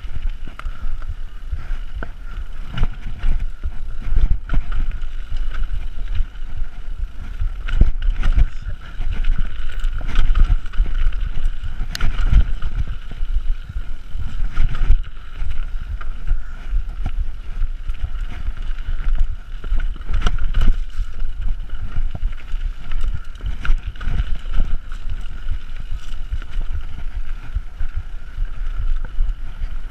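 Mountain bike descending a rough dirt trail at speed: wind buffeting the camera microphone and a continuous rumble of tyres over dirt and roots, with frequent knocks and rattles from the bike over bumps and a steady high buzz throughout.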